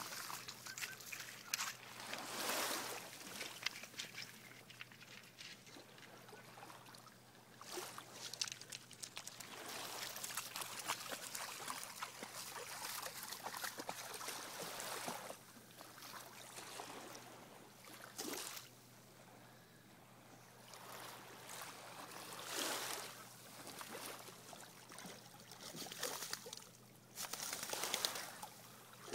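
Water sloshing and splashing in irregular surges as golden retrievers wade and dunk their heads in shallow water.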